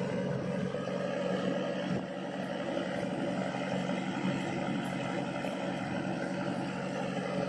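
Inboard engine of a wooden klotok motorboat running steadily under way, an even drone with a constant pitch.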